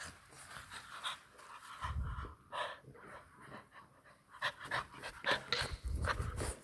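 English bulldog puppy panting, with scattered sharp clicks and two low thumps, about two seconds in and about six seconds in.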